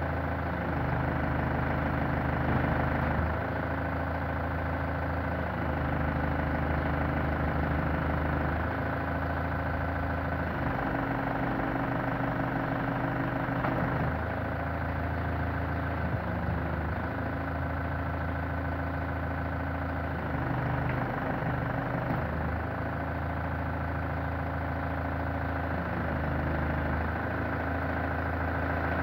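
New Holland compact tractor's diesel engine running steadily, its note shifting every few seconds as the hydraulics work the front-mounted forklift mast.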